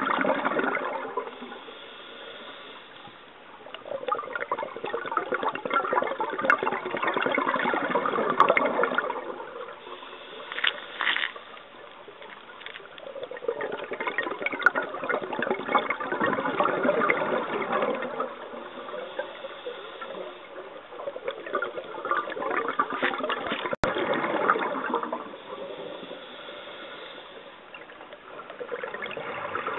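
Scuba regulator breathing heard underwater: bursts of exhaled bubbles gurgling and rushing in bouts about every seven to eight seconds, with quieter stretches between breaths.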